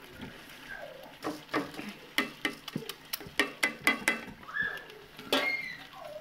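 A quick irregular run of sharp taps and knocks, a utensil and bowl knocking against a cooking pot as soaked rice is tipped onto cooked meat. A few short gliding animal calls sound between the knocks.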